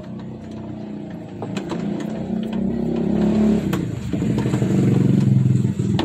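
TVS King three-wheeler's engine running and being revved, getting louder toward about three and a half seconds in, easing briefly around four seconds, then rising again, with a few light rattles.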